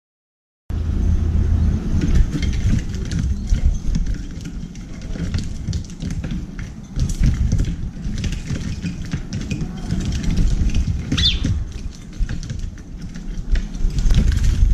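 A flock of Eurasian tree sparrows feeding at a metal seed tray: wing flutters as birds land and take off, and many quick clicks of beaks pecking sunflower seeds against the metal. One short chirp comes about eleven seconds in. Under it all runs a steady low rumble.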